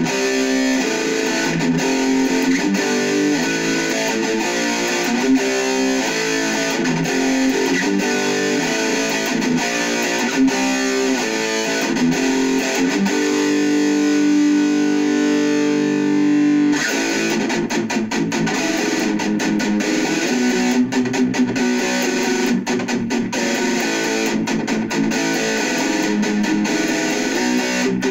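Heavily distorted electric guitar, a Jackson KVXMG played through an Orange Micro Dark hybrid tube amp: fast metal riffing, then a chord held ringing for about three seconds around the middle, followed by quicker, choppy riffs with short stops.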